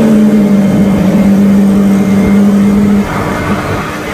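Home-built turbocharger gas turbine jet running on LPG: a loud steady roar with a low steady hum, dropping in level about three seconds in.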